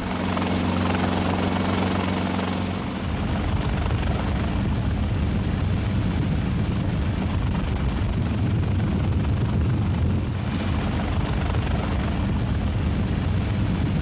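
Bell 47 helicopter flying low: a steady engine and rotor hum that turns, about three seconds in, into a rougher, more rhythmic rotor beat.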